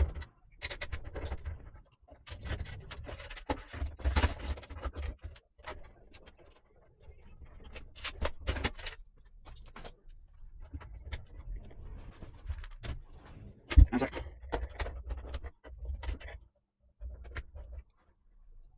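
Hands working on desktop PC hardware: irregular clicks, scrapes and light knocks of parts being handled and unfastened, with one sharper knock about three-quarters of the way through.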